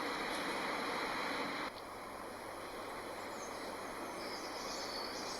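Steady rushing outdoor ambience, like wind or moving air in the open. It drops in level about two seconds in, and a few faint high chirps come near the end.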